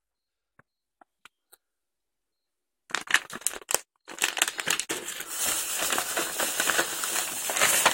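Snack packaging crinkling and rustling as it is handled, starting about three seconds in after a few faint clicks.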